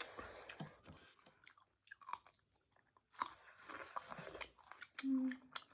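Close-up chewing and crunching of food in the mouth, with irregular crunchy bites and wet mouth clicks.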